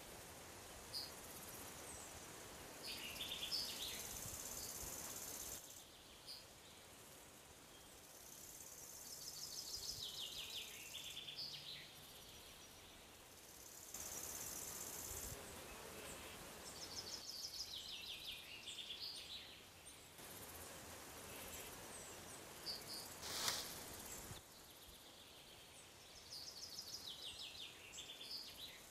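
Countryside ambience: a songbird repeats a short trilled phrase that falls in pitch, every several seconds, over a high, steady insect buzz that starts and stops with the cuts. There is one brief sharp knock about two-thirds of the way through.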